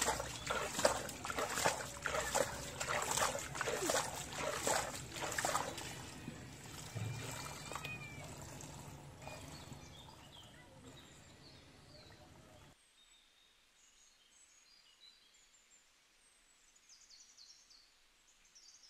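Hands scooping and sloshing muddy water and mud at the mouth of a hole in a mud bank: a quick run of wet splashes that thins out and fades, then stops abruptly about two-thirds of the way through. Faint high chirps follow.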